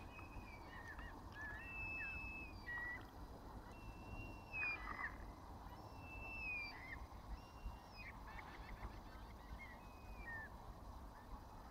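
Several birds calling again and again: high, drawn-out calls that hold their pitch and then drop at the end, some overlapping. A low rumble runs steadily underneath.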